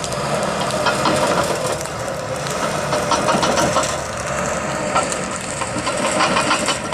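A bulldozer's diesel engine running steadily, with dense, rapid crackling over it.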